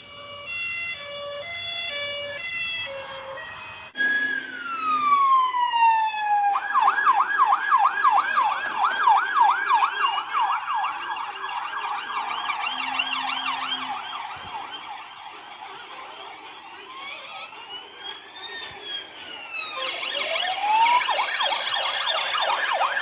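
British police car siren cycling through its tones. It opens with a two-note alternation, then a falling sweep runs into a fast yelp. A slower wail rises and falls, and near the end a rising sweep leads back into the fast yelp.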